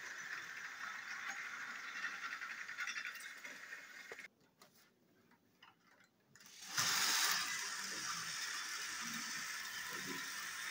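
Battery-powered toy train engines running on plastic track: a steady whirring rattle of small geared motors and wheels. It cuts out about four seconds in and goes nearly silent for about two seconds, then a brief louder clatter and the steady running resumes as the next engines go.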